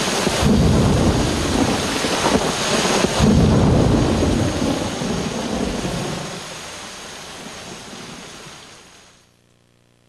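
Rain falling steadily, with two heavy rolls of thunder, one about half a second in and one about three seconds in. The whole soundscape fades out over the last few seconds.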